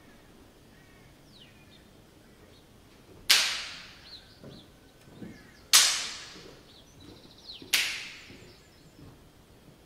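Three sharp cracks about two seconds apart, each fading away over about a second, with faint bird chirps between them.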